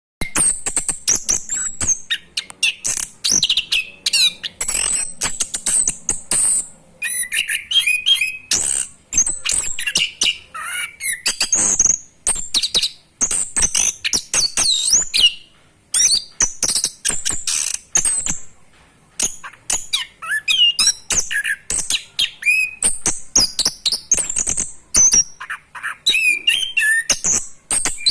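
Orange-headed thrush (anis kembang) singing a fast, continuous song of short high notes and sharp clicks, with only brief pauses. It is practising the unbroken rolling song that bird keepers call 'ngerol'.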